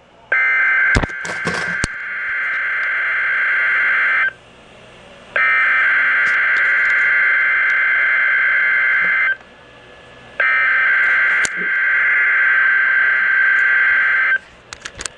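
NOAA Weather Radio sending the EAS digital header for a Required Weekly Test: three bursts of buzzy SAME data tones, each about four seconds long, with a short pause between them. A few sharp clicks sound during the first burst.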